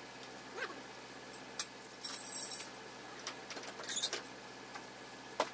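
Scattered faint taps and clicks of hand work at a building site, with a brief scrape about two seconds in and a short ringing clink about four seconds in.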